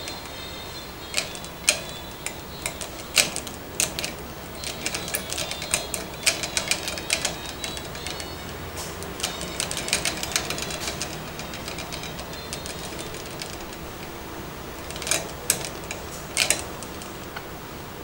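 A budgerigar pecking with its beak, making irregular sharp clicks and taps. They come in bursts, dense through the first half or so, then a lull and a few more near the end.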